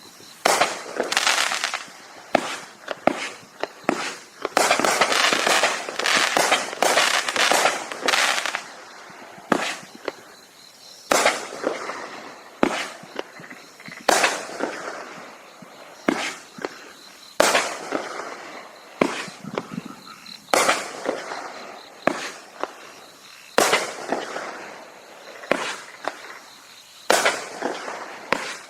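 Multi-shot consumer fireworks cake firing: a string of sharp bangs from shells bursting every one to three seconds. About five seconds in comes a dense spell of crackling lasting several seconds.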